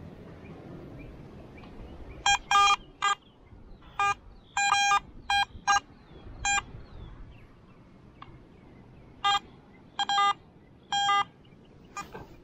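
Metal detector giving about a dozen short, electronic beeps in irregular bursts as its coil is swept over the dug hole. The beeps are its target signal from the buried metal, which turns out to be a rum bottle cap.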